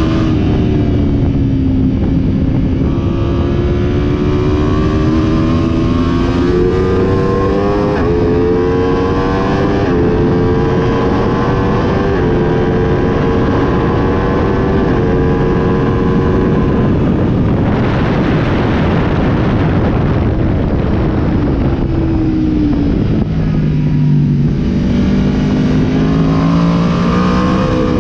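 Aprilia RSV4 1100 Factory's V4 engine at full track pace, its note climbing in steps as it pulls up through the gears from second to fifth. Past the middle, a loud rush of wind drowns the engine at top speed. The note then drops in steps as the bike slows and downshifts back to second, and it rises again near the end.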